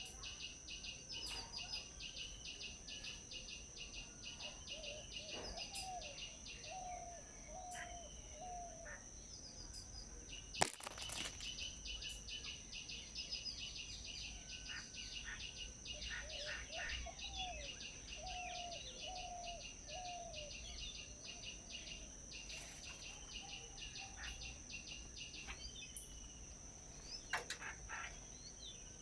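Forest birds calling and chirping over a steady, high-pitched insect drone. Twice, a bird gives a run of about five short, lower notes, and a single sharp click sounds a little past a third of the way through.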